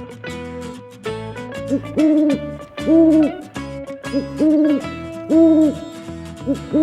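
Owl hooting repeatedly, starting about a second and a half in, in paired calls of a short hoot followed by a longer one, over background guitar music.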